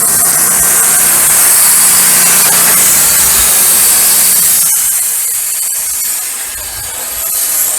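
Wood-Mizer LT15 Go band sawmill running, its blade cutting lengthwise through a pine log. The sound thins out about five seconds in as the cut comes to its end.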